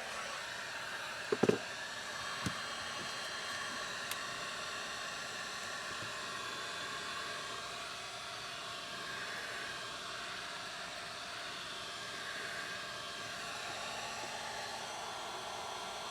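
Heat gun blowing steadily, a fan whir with a hiss of air. A sharp knock about one and a half seconds in and a lighter one a second later.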